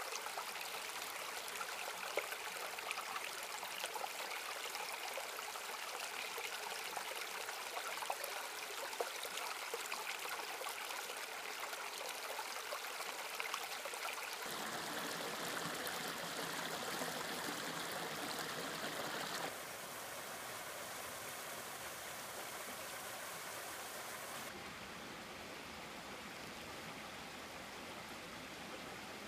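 Shallow woodland brook flowing over rocks: a steady rush and trickle of water with many small splashes. Its tone changes abruptly about halfway through and twice more later.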